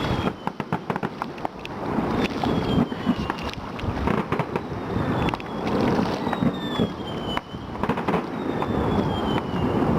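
Fireworks going off: repeated bangs and booms echoing, with a sharp, loud report about seven seconds in. Several high whistles fall in pitch over about a second each.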